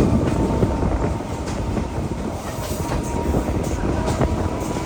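Train running on rails: a steady rumble with scattered clacks of the wheels over rail joints and a faint steady whine.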